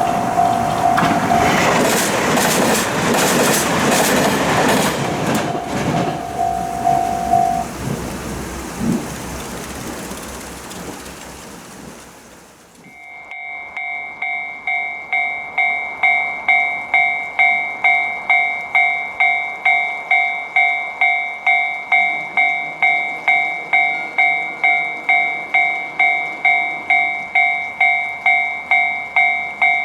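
A train passing over a Japanese level crossing, wheels clattering, with a steady tone above it, fading away about 12 seconds in. Then a level-crossing warning bell starts ringing, an even kan-kan about one and a half strikes a second, growing louder over its first few seconds and holding steady.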